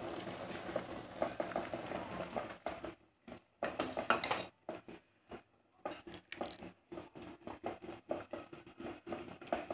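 Hot chicken soup being served from a steel pot into a small bowl: the soup bubbling at first, then light, irregular clinks, taps and scrapes of a ladle against the pot and bowl, broken by short silent gaps.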